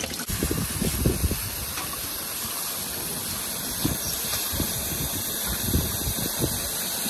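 Tap water running steadily, with irregular sloshing and splashing as food is rinsed by hand in a bowl.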